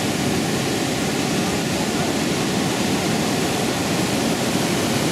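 Mountain river rushing over and between rocks in a narrow gorge: a steady, even roar of water.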